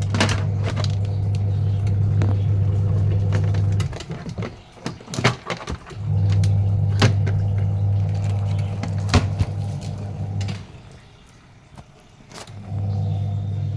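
Washing machine motor humming in runs of about four seconds, with pauses of a couple of seconds between them. Scattered clicks and knocks can be heard in the pauses.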